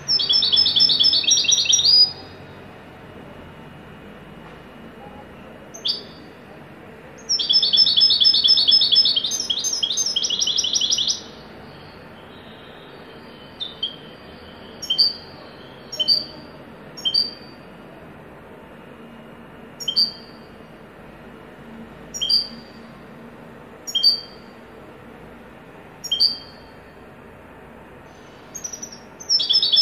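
European goldfinch singing in the 'haddadi' style: fast runs of repeated high, bright notes, one at the start, a longer one of about four seconds a third of the way in and another near the end, with single short notes every second or two between them. A faint steady hiss lies under the song.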